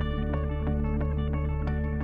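Outro background music: a quick run of plucked guitar notes over steady held low notes.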